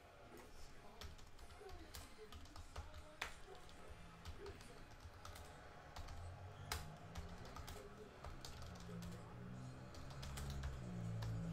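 Computer keyboard typing: irregular key clicks. A low hum sets in about halfway through and grows louder near the end.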